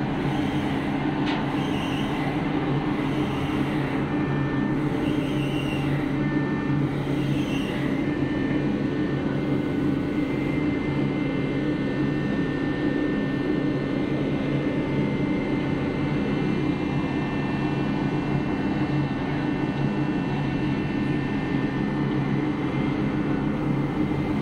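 Steady low drone of a passenger ship's diesel engines, heard on board.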